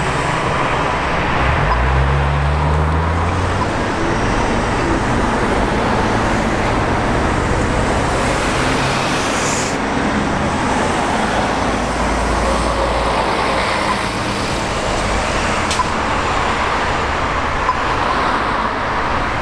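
Diesel city buses in steady road traffic: a Scania L94UB bus pulls away, its engine note rising as it accelerates about two seconds in, and later a second bus passes with a low engine drone.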